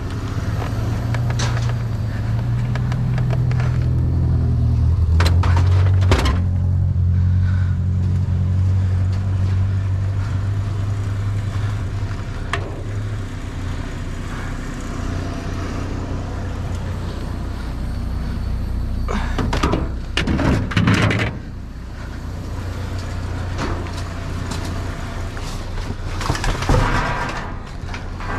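Low engine rumble of a vehicle running close by, loudest in the first half and then fading. Over it come scattered knocks and clatters of objects being shifted inside a metal dumpster, with a busier cluster about two-thirds of the way through and another near the end.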